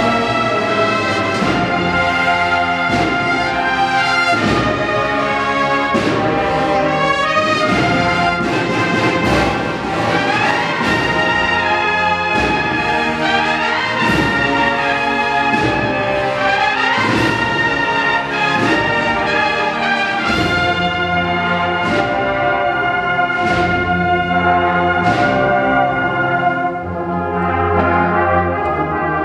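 Andalusian agrupación musical, a band of trumpets, trombones, tubas and percussion, playing a slow processional march. The full brass plays the melody over drum strokes that keep a steady beat about once a second.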